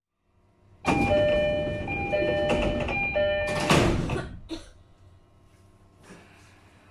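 Door-closing chime of an E531-series commuter train, a short set of tones heard three times over car and platform noise. About four seconds in, the sliding doors shut with a loud thud.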